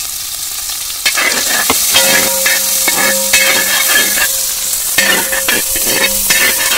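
Sliced onion, ginger and garlic sizzling in hot oil in a wide metal pan. From about a second in, a perforated metal spoon stirs them, scraping repeatedly against the pan.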